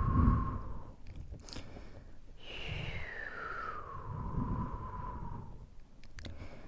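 Close-miked ASMR breath and mouth sounds: slow breaths blown onto the microphone make a low rumble, while a breathy tone slides down in pitch over a few seconds. Wet mouth clicks come about a second and a half in and again near the end.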